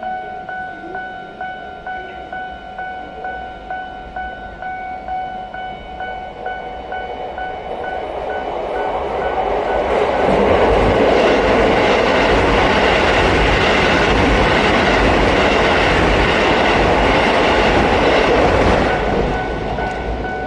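Level-crossing warning bell dinging about twice a second. A Keisei train then comes past over the crossing: its rumble builds from about a third of the way in, drowns the bell for some eight seconds, and fades near the end.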